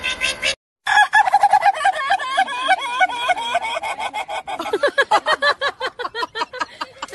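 Rooster calling in a long, rapid run of short notes, several a second, that slide lower in pitch about halfway through. It opens with the last half second of a small car's motor revving, then a brief silence.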